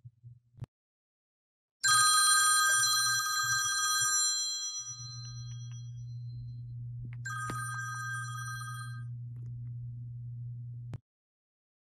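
Smartphone alarm ringing with a bell-like tone in two bursts, cut short as a cat presses the phone's screen to turn the alarm off. The first ring fades after about two seconds, and the second stops after about a second and a half. A low steady hum runs underneath.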